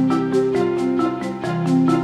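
Background music: bright mallet-percussion melody, marimba or xylophone-like, over a steady beat with short repeated notes.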